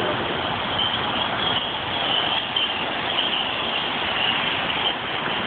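Steady city street noise: an even rush with no single sound standing out.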